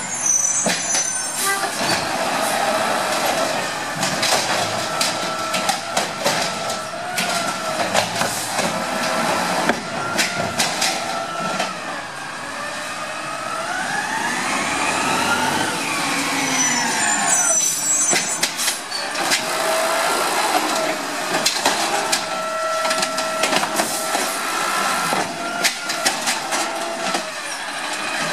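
Amrep automated side-loader garbage truck on a Peterbilt chassis, its CNG engine running as it moves along the curb. The engine pitch rises and then falls about halfway through. There are short air-brake hisses near the start and again about two-thirds of the way in, with scattered clanks throughout.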